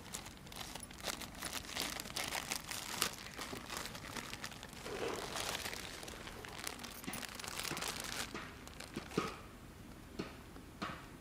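Plastic bread bags crinkling and rustling in irregular bursts as packets of sliced bread are opened and the slices tipped out.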